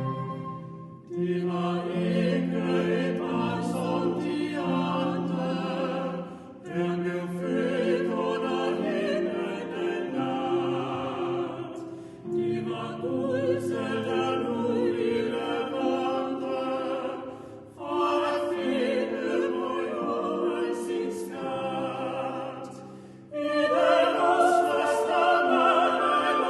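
Choir singing a Danish Christmas song with a chamber orchestra accompanying, in phrases of about five seconds, each ending in a brief dip before the next begins.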